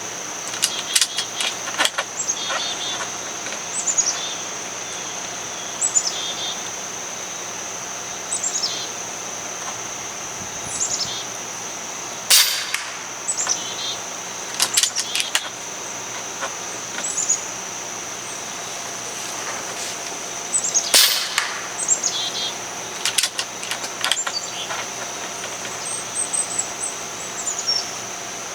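Two shots from a .22 Avenger regulated PCP air rifle, sharp cracks about eight seconds apart, one a little before the middle and one about three quarters of the way through. Birds chirp repeatedly in short falling notes throughout, over a steady high-pitched tone.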